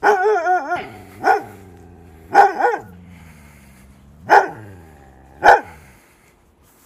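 A husky-type dog barking: a brief wavering howl, then four single barks spaced about a second apart.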